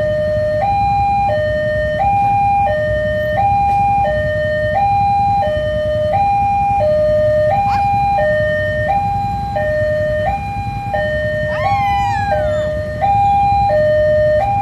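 Railway level-crossing warning alarm sounding: an electronic two-tone signal swapping steadily between a lower and a higher note about every two-thirds of a second, over a low rumble. A brief high falling cry is heard about twelve seconds in.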